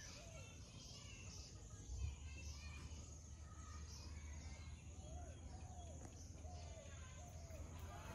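Faint outdoor ambience of birds calling, with a steady low hum underneath and a small knock about two seconds in.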